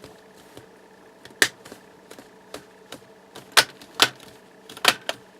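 Plastic clips on the laptop's screen trim clicking into place as the piece is pressed back on by hand: a few sharp snaps, the loudest about one and a half seconds in and three more in the second half, with fainter ticks between.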